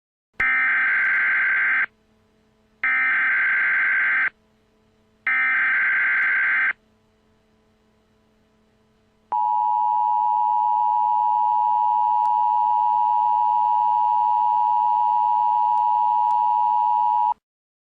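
Emergency Alert System SAME header: three short bursts of rapid digital data tones, then the steady two-tone EAS attention signal sounding for about eight seconds before cutting off.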